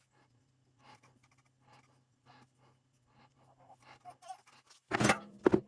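Light scraping and ticking of parts being handled during a transfer case teardown, over a steady low hum, with two louder knocks about half a second apart near the end.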